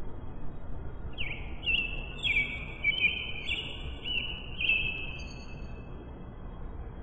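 A bird singing: a run of about eight short high notes, some overlapping, starting about a second in and ending near the end, over a steady low background noise.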